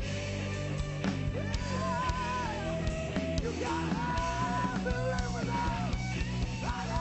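Rock band playing: electric guitar, bass and drums, with a lead melody line that bends and wavers in pitch over the steady accompaniment.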